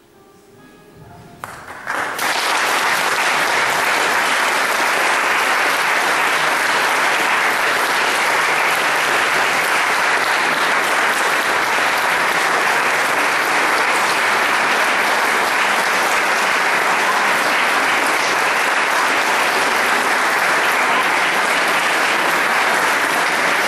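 Audience applauding: soft music fades out, and about two seconds in steady applause breaks out and keeps going.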